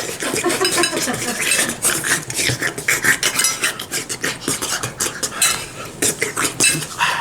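Cutlery clinking and scraping against plates in quick, irregular clicks as people start eating a meal.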